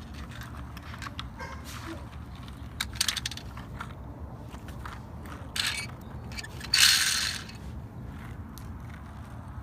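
Toy trucks and small rocks being handled: scattered clicks and knocks, a short clatter about three seconds in, and a louder scraping rattle lasting about half a second near the seven-second mark.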